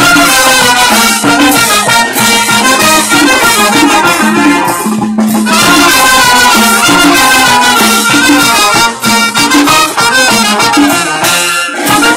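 Brass band playing a lively tune, trumpets carrying the melody over a repeating bass line.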